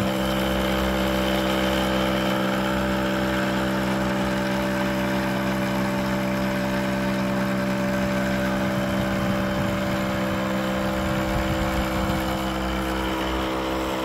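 Old air compressor of a homemade smoke machine running with a steady hum, pushing heated baby-oil vapor into the engine's intake for a vacuum-leak test.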